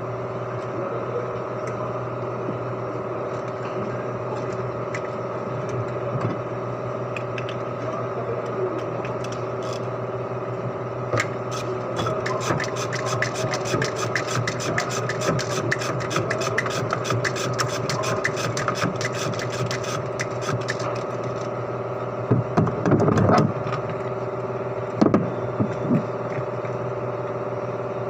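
Quick, even rubbing and scraping strokes over a steady mechanical hum, running for about ten seconds in the middle, followed by two louder knocks near the end.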